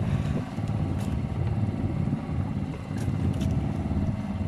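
Small engine on a fishing boat running steadily with a low hum, with a few faint ticks over it.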